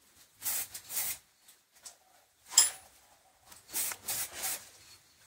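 Aerosol spray can of enamel paint giving short hisses: two quick bursts, a sharp click near the middle, then three more quick bursts.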